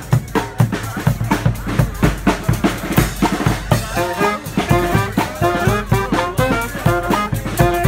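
Brass street marching band playing a tune: drums keep a fast, steady beat while the horns play a melody in short stepped notes, clearest in the second half.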